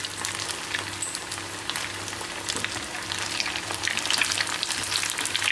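Breadcrumb-coated rice and cheese macaroni balls deep-frying in hot oil in a kadai: a steady sizzle full of small crackling pops, while a wire skimmer turns the balls in the oil.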